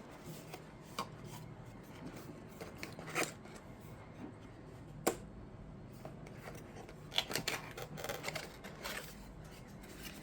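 A sealed cardboard product box being opened and its packaging handled: scattered clicks, scrapes and rustles, with one sharp click about halfway through and a busier run of handling noises near the end.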